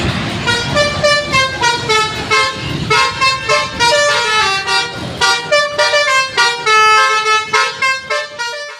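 Indonesian 'telolet basuri' bus horn playing a fast melody of short, changing notes, with a low rumble underneath for the first few seconds.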